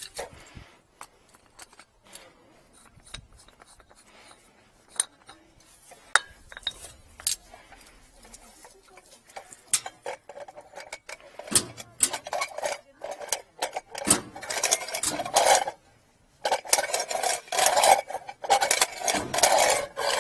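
Scattered metallic clinks and knocks, becoming dense, continuous clattering a little past the middle, with a brief pause before it resumes.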